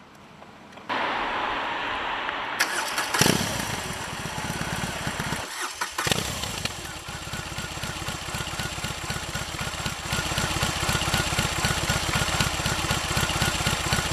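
A BMW R18's 1802 cc air-cooled boxer twin is started and catches about three seconds in, then idles with an even, rapid low beat. It drops out briefly about five seconds in, then runs steadily again and gets a little louder from about ten seconds.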